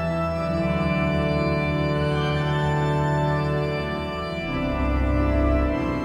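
Background music of sustained organ chords, shifting to a new chord about half a second in and again about four and a half seconds in.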